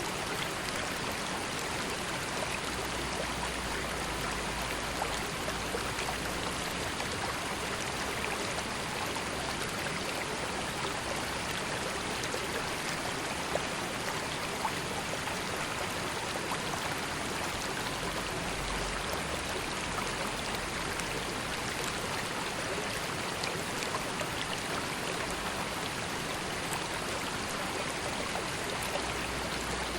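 A river flowing steadily, its water rushing with small splashes and trickles.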